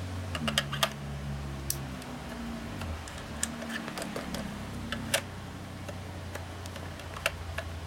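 Small screws and plastic housing parts of a handheld car vacuum cleaner clicking and tapping as they are handled and fitted, a few irregular sharp ticks scattered through, over a steady low hum.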